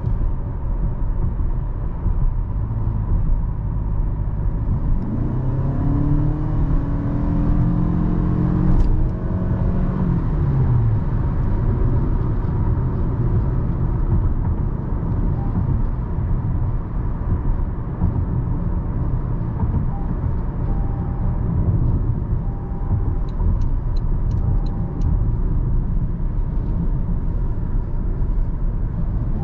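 Toyota Camry hybrid's 2.5-litre four-cylinder engine and tyres on the road while driving, a steady low rumble. About five seconds in, the engine note climbs for about four seconds under acceleration, then drops back.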